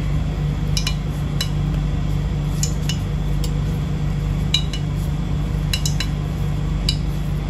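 Light, irregular clinks and taps of fingers and tofu cubes against a ceramic bowl while the tofu is turned in flour, over a steady low hum.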